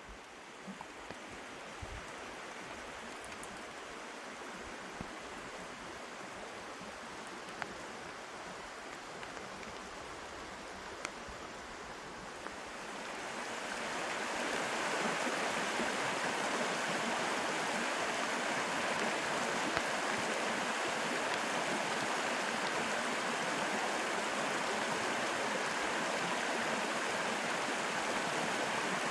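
Steady rain hiss with scattered drip ticks. About halfway through, the flowing water of a small forest creek over rocks fades in and takes over as a louder, steady rush.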